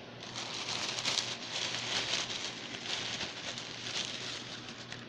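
Thin plastic grocery bag crinkling and rustling as a hand rummages around inside it, a dense run of small crackles.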